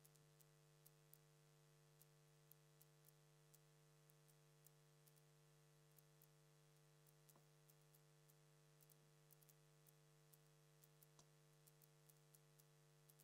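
Near silence: a steady low electrical hum with faint scattered clicks, and two slightly stronger faint knocks about seven and eleven seconds in.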